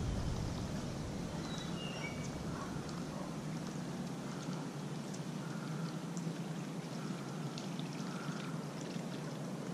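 Whopper Plopper 60 topwater lure being reeled across the water surface, its spinning tail churning up a steady splashing gurgle.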